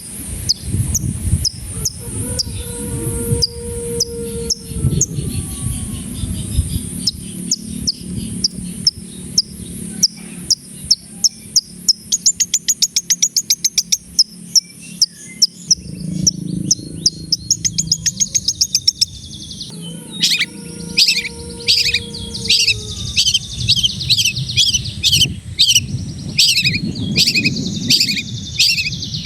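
Long-tailed shrike (cendet) singing energetically: a long string of sharp, rapidly repeated high notes, with a fast run of notes in the middle and lower gliding whistles near the start and again after about twenty seconds. A steady high hiss sits under the song.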